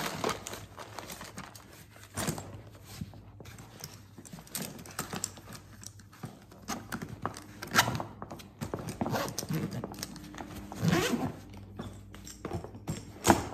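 Hand tools clinking and knocking as they are packed into a soft-sided fabric tool bag, with fabric rustling and the bag's zipper being pulled shut. The knocks come irregularly, a few of them louder.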